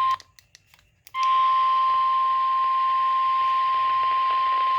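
NOAA Weather Radio warning alarm tone: a single steady high-pitched tone over receiver hiss. It breaks off just after the start with a few clicks, then resumes about a second in and holds steady. It announces a severe thunderstorm warning.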